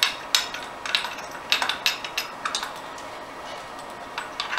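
Irregular sharp metallic clicks and clinks of a hand wrench working the 14 mm bolts on an AX5 transmission case, with a quieter pause partway through.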